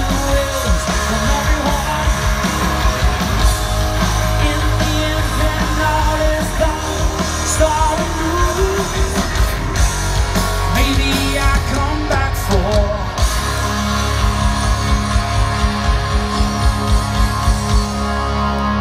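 Live rock band playing amplified guitars and keyboard with drums, a lead vocalist singing over them. From about two-thirds of the way through the singing drops out and the band holds one low note over a steady, even beat.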